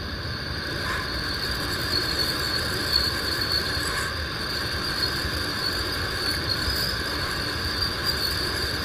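Insects chirring steadily in an unbroken high drone, with a fainter lower drone and an even hiss underneath.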